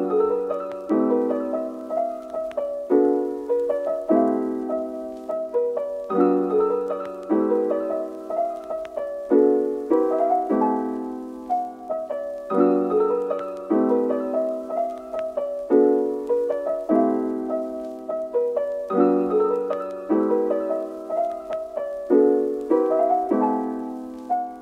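Background music: gentle solo piano, notes and chords that ring out and fade, with a new chord about every second.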